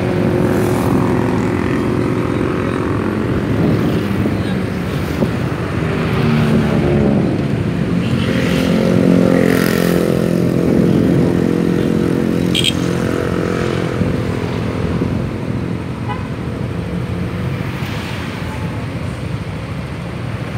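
Engines of a crowd of motor scooters, among them Yamaha NMax scooters, running together at low speed, swelling and easing off as throttles open around the middle. A brief high-pitched tone sounds about two-thirds of the way through.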